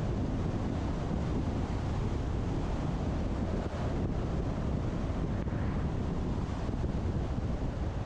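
Steady wind rushing over a roof-mounted action camera on a moving electric Tesla Model X, over a low, even rumble of tyres on the road.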